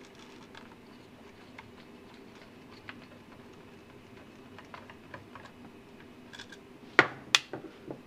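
Faint ticks and scrapes of a hand screwdriver backing a small screw out of a battery charger's metal chassis. About seven seconds in come two sharp clacks, then a few lighter knocks, as the screwdriver is put down on the wooden bench.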